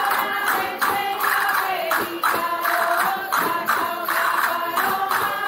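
A group of voices singing a hymn-like song in unison, over a steady beat of hand percussion with jingles.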